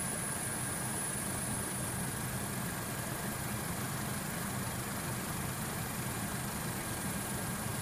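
Steady engine drone of the aircraft carrying the camera: a constant low rumble with a thin high whine above it.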